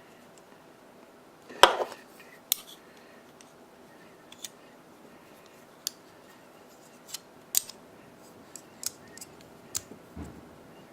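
Small metal folding-knife parts and tools being handled and set down on a work surface: one sharp clink about a second and a half in, then scattered light clicks and taps.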